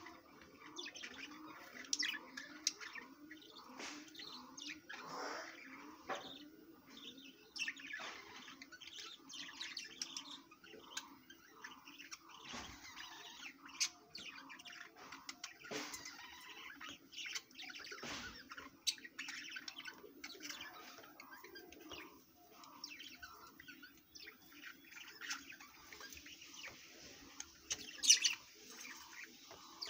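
Budgerigars chattering in a cage: a steady stream of short chirps and twittering notes, with one loud sharp chirp near the end.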